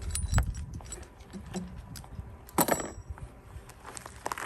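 Metal clinking and clanking of tools and heavy brake hardware being handled, with scattered sharp knocks and one loud, ringing metallic clank about two and a half seconds in. This is the work of taking the large brake shoe return springs off an air-brake drum assembly with a spring tool.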